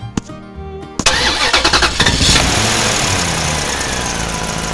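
A vehicle engine starting about a second in with a loud burst, its pitch falling over the next second or so as it settles into a steady idle. Before it, about a second of music with light tapping.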